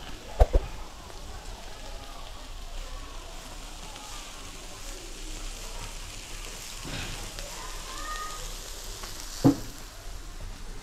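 Chicken pieces sizzling in a hinged wire grill basket over hot charcoal, a steady hiss. Two short knocks about half a second in and another near the end.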